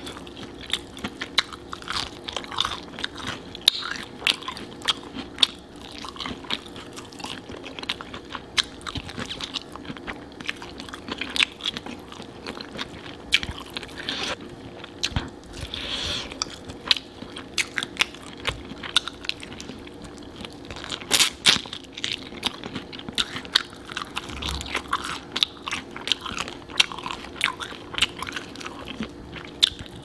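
Biting and chewing into crispy fried chicken drumsticks, with many sharp, irregular crunches of the breaded skin. A faint steady hum runs underneath.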